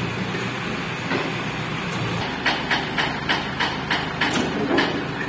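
Hoist chain and lifting gear clanking: a quick run of about eight sharp metallic knocks, roughly three a second, over steady background noise.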